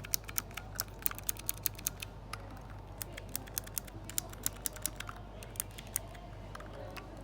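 Typing on an A4Tech Bloody D800 mechanical keyboard with clicky blue switches: sharp key clicks in irregular runs of several a second, with a short gap about two seconds in, thinning out near the end. A faint steady hum lies underneath.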